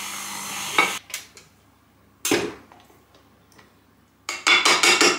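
KitchenAid stand mixer whirring, then cut off about a second in. Scattered clinks and a single knock follow, then near the end a quick run of clattering knocks as the metal paddle attachment is handled against the glass mixing bowl.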